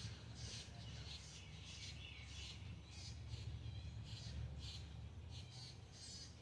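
Birds chirping in short, repeated high calls, a few a second, over a low steady rumble.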